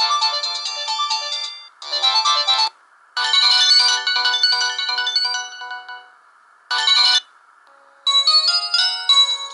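Samsung GT-E1050 mobile phone playing polyphonic ringtone melodies. The melody stops and starts again several times, with short pauses of about half a second to a second between phrases.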